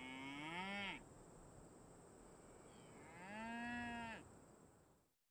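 A cow mooing twice, each moo about a second long: the first rises and then falls in pitch, the second, about three seconds in, holds steady.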